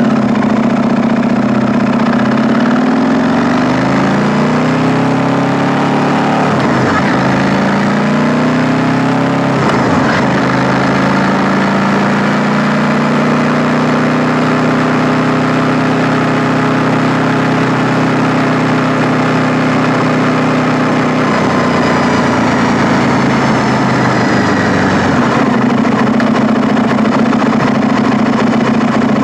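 KTM 890 Duke R's parallel-twin engine running on the road, its note dropping in pitch a couple of times in the first ten seconds as the bike slows, then holding a steady note, with further small changes in revs near the end.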